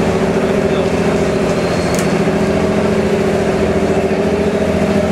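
Passenger riverboat's engine running steadily, a constant droning hum, with a single brief click about two seconds in.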